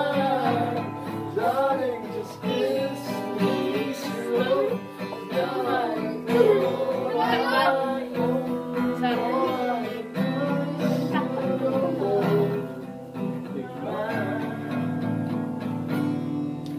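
Acoustic guitar strummed, with children singing along.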